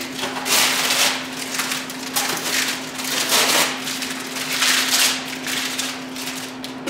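Thin clear plastic bag crinkling and rustling in irregular bursts as it is pulled and handled.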